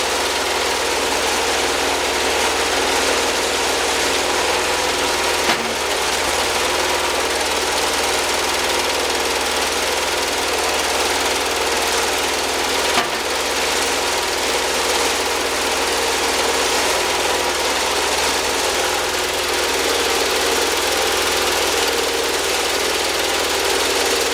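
Wood-Mizer portable band sawmill running steadily, its engine and blade making a constant loud drone, with two brief knocks, one at about five seconds and one at about thirteen.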